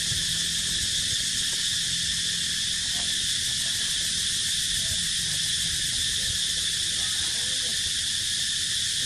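Steady, high-pitched insect chorus droning without a break, with a low rumble of wind underneath.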